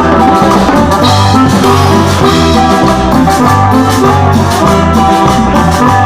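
Cumbia band playing an instrumental passage: a steady dance beat of bass and drums under sustained keyboard or guitar notes.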